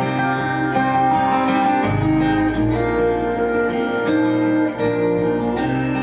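Recorded song with guitar, played through a pair of Neat Acoustics Petite bookshelf speakers and picked up in the room; an instrumental passage with sustained notes over a steady bass line, without vocals.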